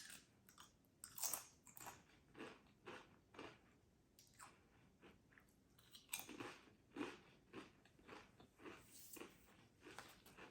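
Faint, close crunching and chewing of Pringles potato crisps in the mouth, about two crunches a second.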